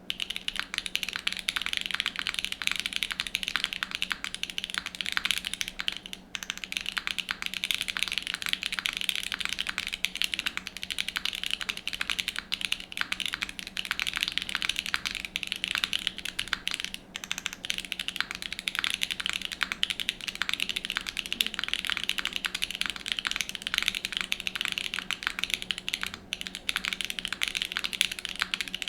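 Fast, continuous typing on a mechanical keyboard: a Boardchun's board with lubed Loga Chathai switches on an FR4 plate and GMK Tiramisu keycaps. The typing begins suddenly and goes on as a dense stream of clacks.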